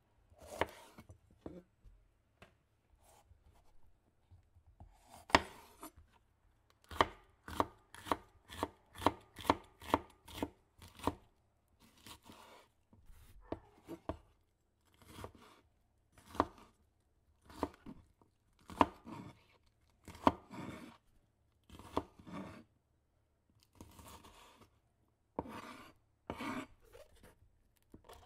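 Chef's knife cutting a red bell pepper on a wooden cutting board: a long series of sharp knocks of the blade on the board, irregular, with a quicker run of about two chops a second partway through and a few longer scraping cuts.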